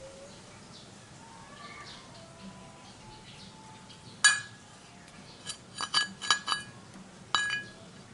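Metal tools clinking and ringing against metal: one sharp clink about four seconds in, a quick run of clinks around six seconds, and another near the end.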